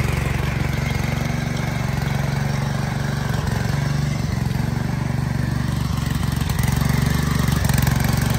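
Trâu Vàng mini tiller's 7 hp four-stroke OHV petrol engine running steadily under load as the tines churn through soil.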